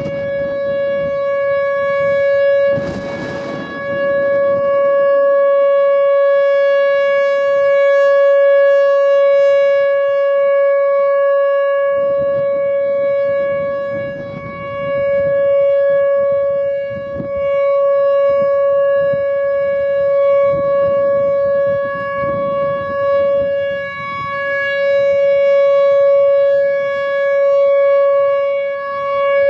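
Whelen Vortex electromechanical outdoor warning siren sounding the alert signal: a single steady, unwavering tone that swells and fades in loudness as the rotating siren head turns.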